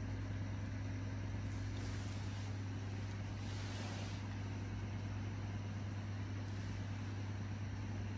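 A steady low hum under a faint, even hiss, with a short swell of hiss about three and a half seconds in.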